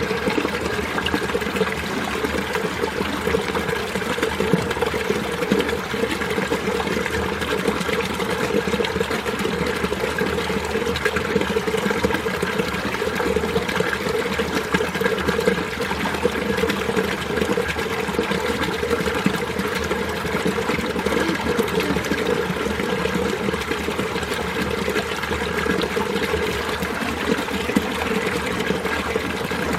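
Mountain stream in winter, its water flowing and trickling over rocks in a steady, unbroken babble.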